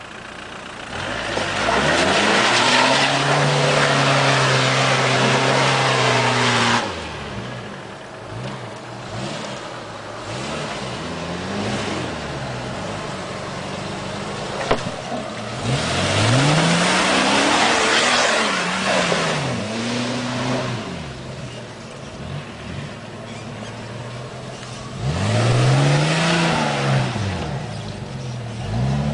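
An off-road 4x4's engine is revved hard under load in three long loud bursts, its pitch climbing and falling again and again, with lighter revving between the bursts.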